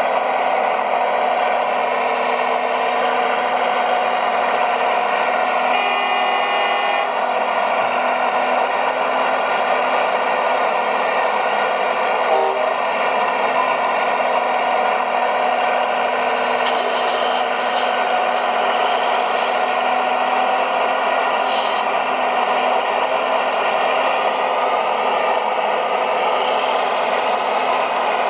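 RC model Liebherr 970 hydraulic excavator's hydraulics running steadily while it holds and moves a load on chains, with a few short clicks and clatters.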